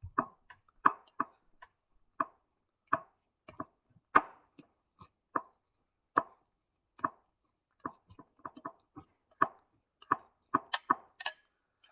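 A fork mashing black beans and olive oil into a thick paste in a bowl. It makes a series of short, irregular knocks and taps, about one or two a second, coming quicker near the end.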